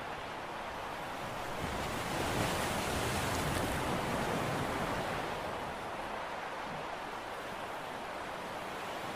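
A steady rush of wind and sea waves, swelling louder for a few seconds about two seconds in.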